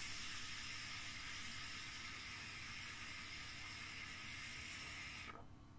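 Pen-style e-cigarette drawn on in one long pull: a steady hiss of air and coil sizzle that eases slightly and cuts off sharply near the end as the draw stops.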